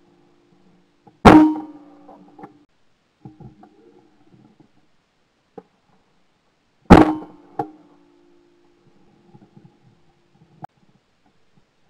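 Two shotgun shots at clay targets, about six seconds apart, fired very close to the microphone; each loud crack is followed by a short ringing hum for about a second.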